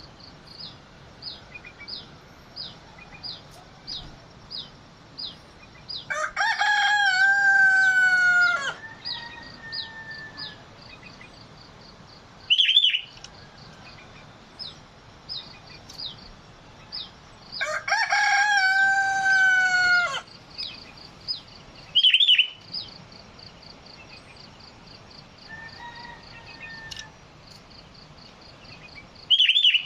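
A rooster crowing, two long crows of about two and a half seconds each, with a third starting at the very end. Between the crows come short sharp bird calls and a run of faint, evenly spaced high chirps.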